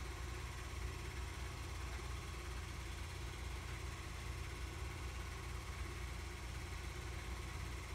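Super 8 film projector running: a steady motor whir with a low hum that stays even throughout.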